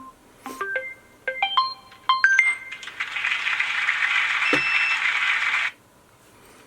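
Electronic keypad beeps as a code is entered: a quick run of about ten short beeps, each at a different pitch. A harsh buzz follows for nearly three seconds, with one sharp click partway through, the signal of the box's electronic lock accepting the code.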